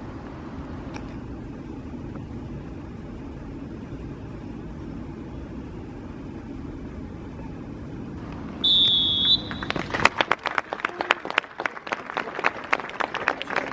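Steady low wind-like rumble on the microphone, then about nine seconds in a single short blast of a referee's whistle, followed by spectators clapping.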